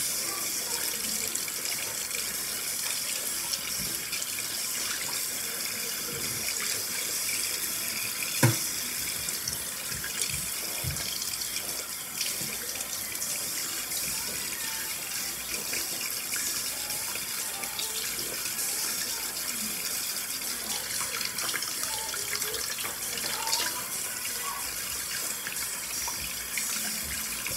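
Hot water running steadily from a bathroom sink faucet into the basin as a toothbrush is rinsed under it. A single sharp knock about eight and a half seconds in.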